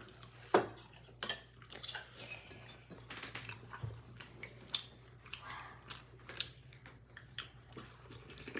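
Spoons clinking and scraping against ceramic bowls and plates during a meal, in scattered light taps with a sharper clink about half a second in.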